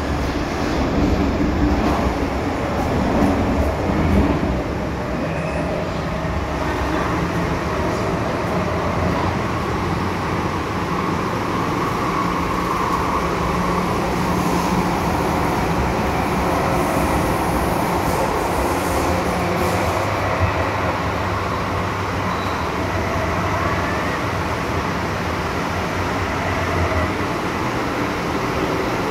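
MTR M-Train electric multiple unit running, heard from inside the carriage: a steady rumble of wheels and traction motors.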